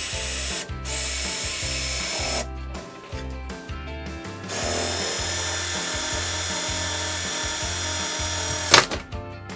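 Power drill with a twist bit boring into a PVC end cap, running in three spells: two short ones, then one of about four seconds from the middle on. A sharp knock comes near the end, the loudest moment. Background music with a steady beat plays underneath.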